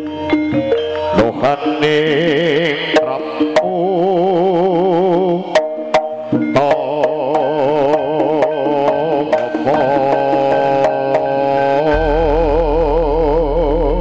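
Live Javanese jaranan music: hand-drum strokes under a held, wavering melody line. A deep low note sets in near the end.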